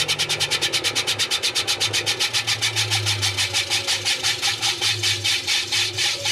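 Washing machine drum, loaded with balloons, spinning down. A rapid rhythmic swish comes around with each turn, about ten a second at first and gradually slowing, over a low motor hum.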